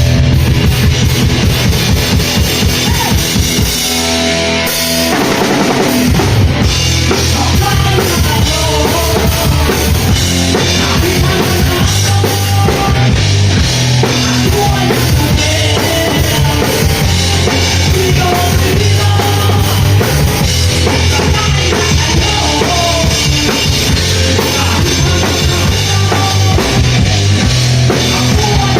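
Rock band playing live, with a drum kit and bass driving a steady beat. The low end drops away briefly about four seconds in, then the full band comes back in.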